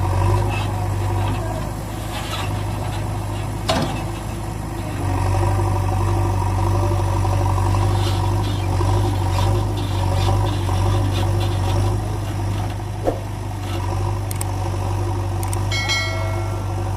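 Engine running steadily with a low, even hum that gets louder about five seconds in. There is a sharp click about four seconds in and a few short beeps near the end.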